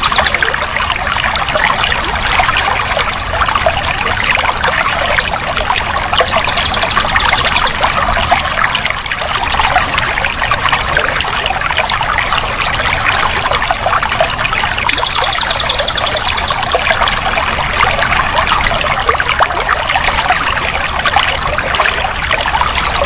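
Running water, pouring and trickling steadily. Twice it is joined briefly by a fast, high-pitched trill.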